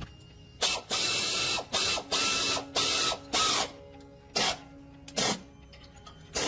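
An air tool run in about eight short, hissing bursts of uneven length, the longest under a second, with pauses between.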